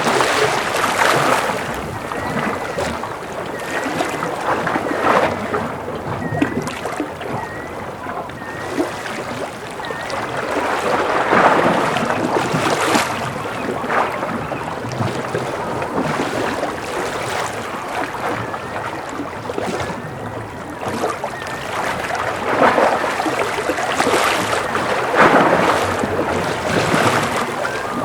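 Ocean waves lapping and washing against a concrete breakwater, swelling and easing every few seconds. A faint short high chirp repeats over and over for stretches of several seconds.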